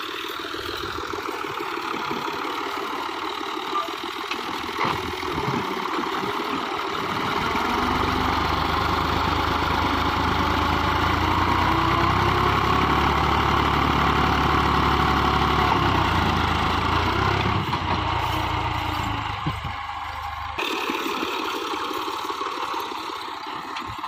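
New Holland Ghazi 65 hp tractor's diesel engine running steadily while it drags a rear blade through loose soil. It grows louder and deeper for several seconds in the middle as the blade pushes a load of earth, then eases off.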